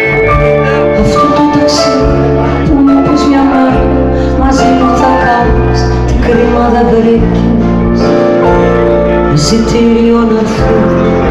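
Live band music at a concert, with steady bass notes and sharp hits every few seconds, and a woman singing into a microphone.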